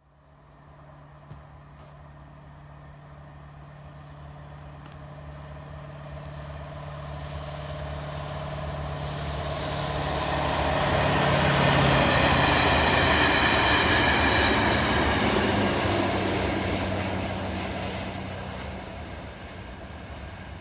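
Train approaching and passing at speed: a steady low hum and rising wheel-on-rail rolling noise build to a peak about halfway through, then fade as it goes away.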